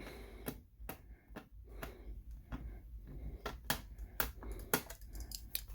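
Screwdriver working a spring-loaded captive screw into a laptop's plastic back panel: a series of irregular sharp clicks and light knocks.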